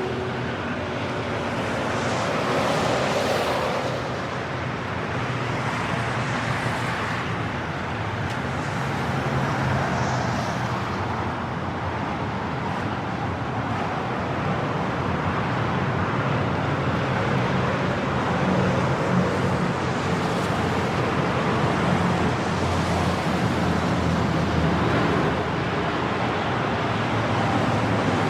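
Medium highway traffic on wet concrete: cars passing at speed with a steady hiss of tyres on the wet road, swelling a little as vehicles go by.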